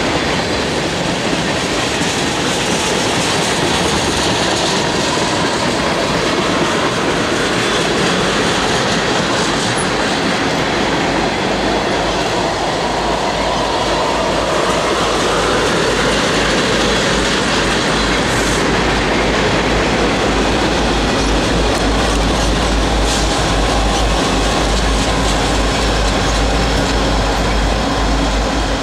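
A loaded tank-car freight train rolling past, its wheels clicking and rumbling over the rails with some wheel squeal. About halfway through, four Norfolk Southern SD40E helper locomotives at the rear come by, and their 16-cylinder EMD two-stroke diesel engines add a deep rumble that stays heavy as they pass.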